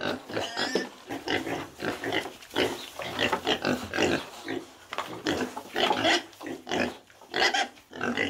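Piglets grunting, with many short calls in quick, irregular succession.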